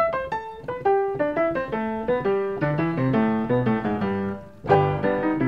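Piano music: a line of quick single notes over lower chords, with a brief pause and then a loud chord near the end.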